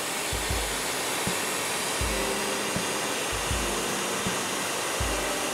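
Ryobi 1800 PSI pressure washer running and spraying water through a 25-degree tip with a 2.0 orifice: a steady hiss of high-pressure spray over the machine's hum, with low thumps recurring every half second to a second.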